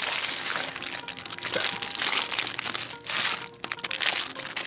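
Clear plastic garment bag crinkling and rustling as hands handle it and work at opening it, with a short lull about three seconds in.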